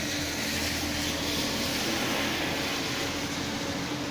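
Steady rain falling on a wet street, an even hiss, with a faint low hum underneath.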